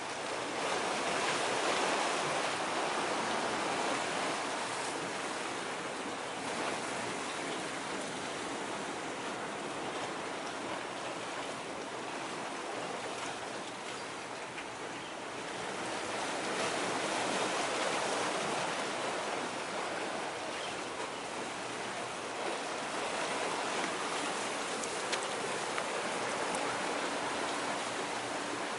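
Sea water washing against the shore in a steady hiss, swelling a second in and again about halfway through.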